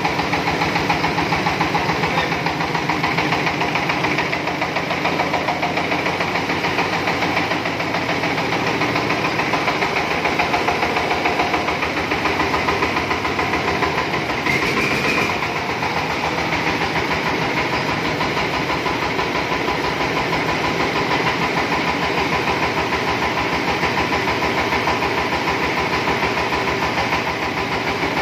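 The diesel engine of a trailer-mounted mobile rice mill running steadily at constant speed, with a fast, even beat of firing strokes.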